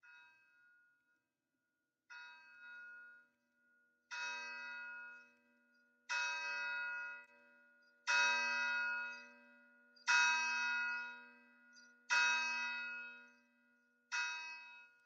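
A church bell tolling eight times, one stroke about every two seconds, each ring fading before the next; the first strokes are faint and they grow louder toward the middle.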